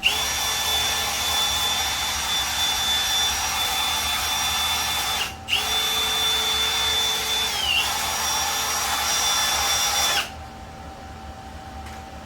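Welding arc running a bead on steel, with a steady hiss and a high whine, in two runs: it cuts out for an instant about five seconds in, strikes again, and stops abruptly about ten seconds in.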